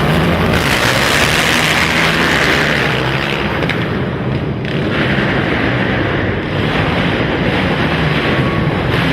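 Several racing quad (ATV) engines running hard in an indoor arena, loud and steady, with the sound easing briefly about halfway through before building again.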